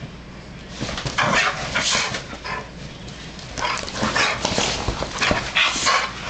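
Two pit bulls play-fighting, with dog noises and scuffling in short, irregular bursts. It starts about a second in, after a brief lull.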